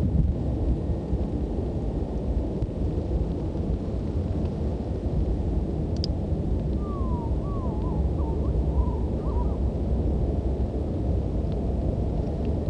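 Steady low rumbling noise, with a short wavering call about seven seconds in.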